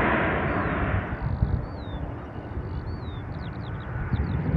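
Jet aircraft noise dying away over the first second, leaving a low rumble, while small birds chirp repeatedly.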